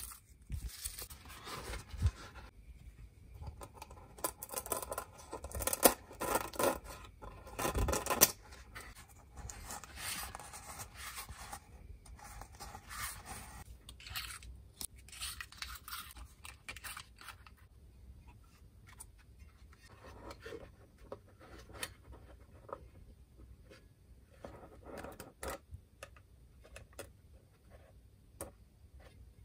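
Paper tape being peeled and torn off a loudspeaker's metal frame in irregular rasping rips, loudest in the first half, then fainter scrapes and clicks of the woofer being handled.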